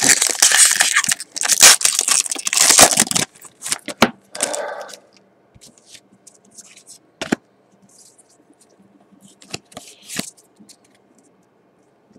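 Foil booster-pack wrapper of a Pokémon trading card pack being torn open and crinkled for about three seconds, then quieter scattered clicks and short rustles as the cards inside are handled.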